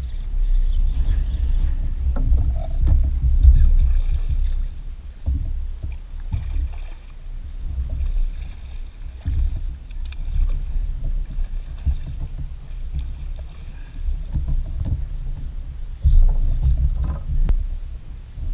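Wind buffeting the microphone on a drifting kayak: a low, uneven rumble that gusts up and dies back, with a few light knocks in between.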